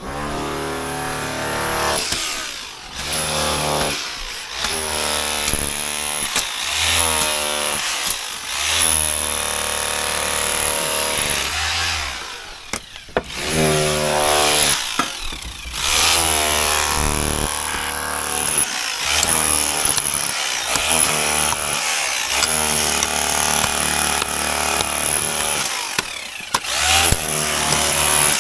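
Handheld electric power tool running under load, likely cutting at the pipe, its motor pitch rising and falling, with several short dips where it eases off or stops and starts again.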